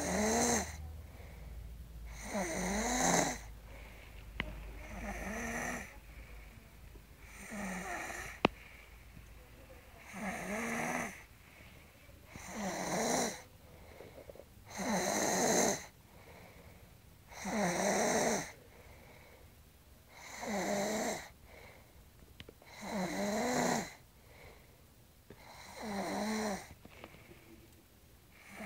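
Heavy snoring that sounds like a man's: about a dozen snores in a steady rhythm, each about a second long, one every two and a half seconds. A single sharp click about eight and a half seconds in.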